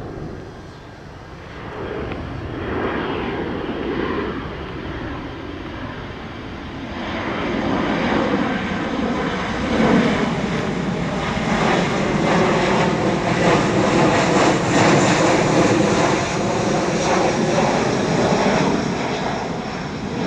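Jet airliner passing close by, its engine noise swelling from about seven seconds in and staying loud, with the pitch of the engine whine bending as it goes past.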